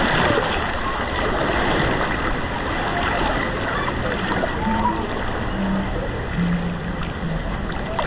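Water rushing and splashing steadily through a water-park wild-river rapids channel.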